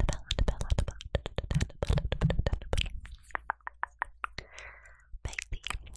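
Close-miked mouth and tongue clicks: a fast, irregular run of sharp wet clicks, thinning to a quick even series of softer clicks near the middle, then a short soft breathy hiss before the clicking picks up again.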